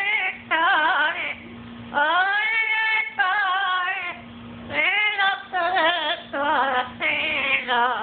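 Amazon parrot singing: a string of short, wavering, pitched phrases with brief gaps between them, including a longer note that rises and then holds about two seconds in.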